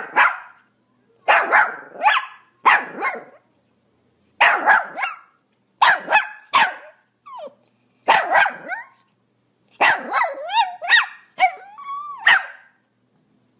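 Pomeranian barking in quick clusters of two to four sharp barks, with wavering, whiny yelps mixed in near the end before it stops.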